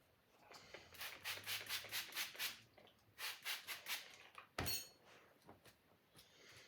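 Sword blade being sharpened with quick rasping strokes against a sharpener: a run of about seven strokes, a brief pause, then about four more. A single metallic clank with a short ringing tail follows about halfway through.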